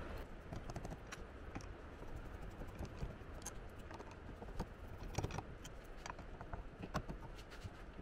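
Screwdriver backing screws out of a metal RV door handle: faint, irregular small clicks and ticks of the tool and screws, with a short cluster of clicks about five seconds in.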